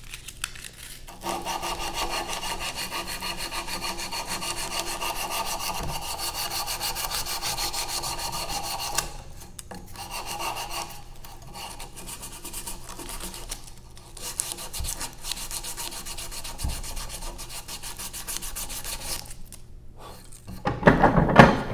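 Fine sandpaper rubbed by hand, back and forth along the curved edge of a pine cut-out held in a vise, rounding it over. Fast, steady strokes for several seconds, then lighter, broken strokes with short pauses, and a short louder sound near the end.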